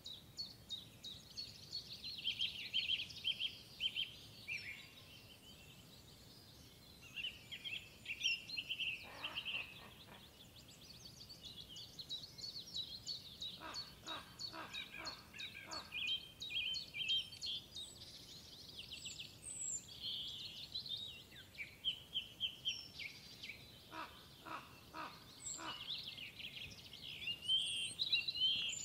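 Songbirds chirping and trilling, several overlapping, with quick high trills and short falling whistles. Twice, a short run of about six quick clicks sounds under the birdsong.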